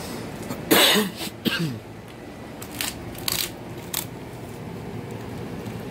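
German Shepherd chewing a pig ear: irregular crunches and cracks as the teeth break through the cartilage, loudest about a second in.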